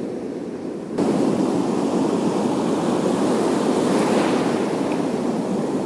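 Sea surf washing and foaming over a rocky shoreline, with wind on the microphone. The sound gets suddenly louder about a second in.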